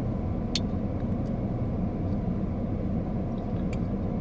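A Sheffield multitool's stainless clip point blade gives a sharp metal click about half a second in, with a fainter click near the end, over a steady low rumble.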